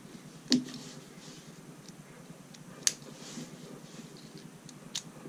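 Small LEGO wheels being pressed onto a plastic brick car: three sharp plastic clicks a couple of seconds apart, with soft handling ticks between.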